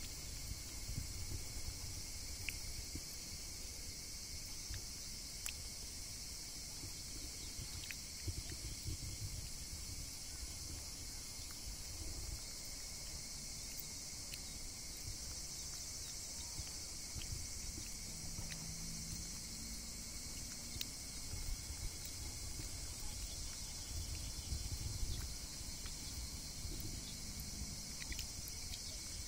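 Insects chirring steadily, a continuous high hiss with a thin steady tone beneath it, over a low uneven rumble.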